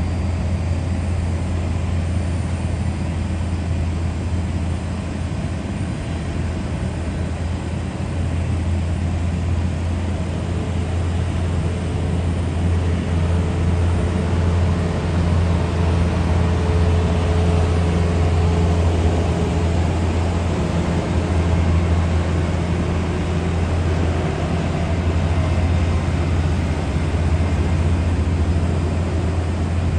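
Boeing 747 jet engines running at taxi power, a steady low rumble with a broad hiss over it, swelling slightly in the middle.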